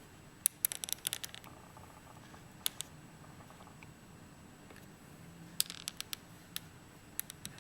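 Keys on an Acer Aspire V15 Nitro laptop keyboard being typed in short quick runs of clicks, with pauses between the runs.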